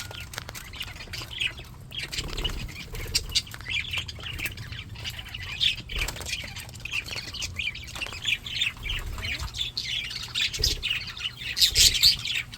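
A flock of English budgies chattering continuously: a dense mix of short chirps, warbles and squawks, busier and louder near the end.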